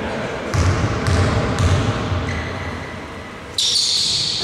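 A basketball dribbled three times on the gym's hardwood floor, about half a second apart, as a free-throw shooter readies his shot; the bounces echo in the large hall. Near the end a louder, hissy background noise with high steady tones suddenly cuts in.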